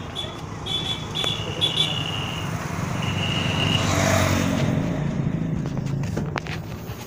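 Street traffic: a motor vehicle passes close, swelling to loudest about four seconds in, over a steady low hum of road traffic, with a few short high-pitched tones in the first half.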